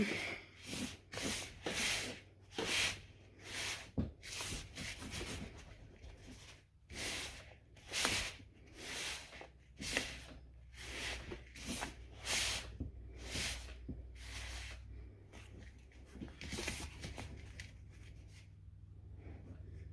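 Hands rubbing and working damp shower-steamer mix of baking soda and citric acid: repeated rustling, gritty strokes about once a second, thinning out in the last few seconds.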